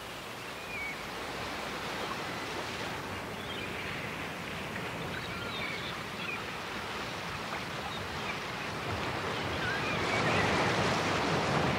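Recorded ocean surf: a steady wash of waves that slowly swells louder toward the end, with a few faint short high chirps now and then.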